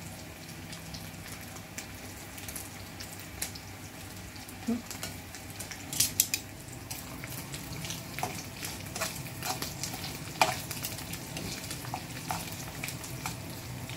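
Dried sap-sap fish frying in hot oil in a pan: a steady sizzle with scattered sharp clicks and pops, the loudest about six and ten seconds in.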